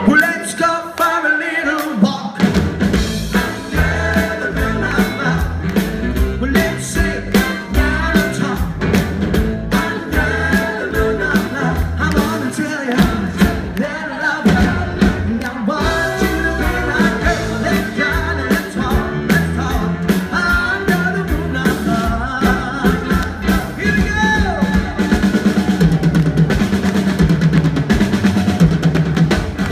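Live rock and roll band playing, with a lead singer, drum kit and guitar. The drums and bass come in about two seconds in.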